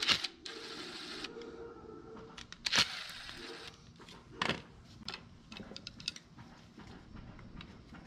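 Cordless electric screwdriver whirring for about three seconds as it backs out the screws holding the float bowl on a plastic Briggs and Stratton carburetor, with sharp clicks and knocks from the tool and the plastic carburetor. Small clicks and taps of handling the loosened parts follow.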